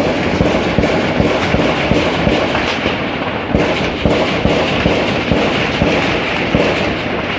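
Sustained gunfire: many shots cracking in quick, irregular succession without a break.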